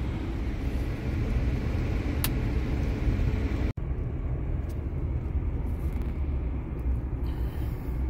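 A truck's engine and its tyres in snow, heard from inside the cab as a steady low rumble. There is a single faint click about two seconds in, and the sound cuts out for an instant just before halfway.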